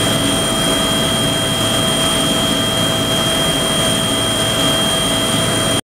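Helicopter in flight heard from inside the cabin: a loud, steady engine and rotor drone with several constant high-pitched whines over it. It cuts off suddenly at the very end.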